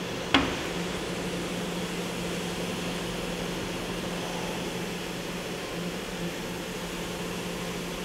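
Kia HC800 horizontal machining center running with its spindle turning: a steady machine hum with a low held tone. A single sharp clunk sounds about a third of a second in.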